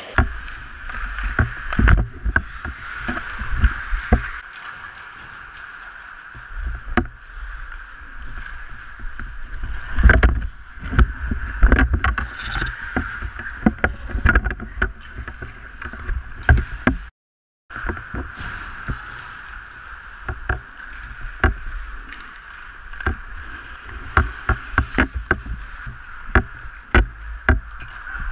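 Pickup ice hockey heard from a goalie's mask: skate blades scraping the ice and many sharp clacks of sticks and puck, over a steady background hum. The sound drops out for about half a second roughly seventeen seconds in.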